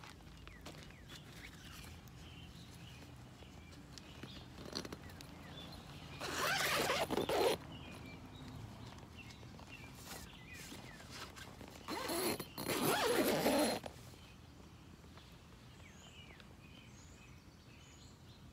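Tent door zipper being pulled shut in two long zips, the first about six seconds in and the second about twelve seconds in.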